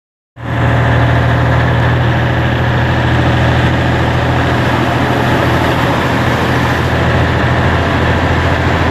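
FNM 180 truck's diesel engine running steadily at road speed, a deep even rumble whose pitch drops slightly near the end.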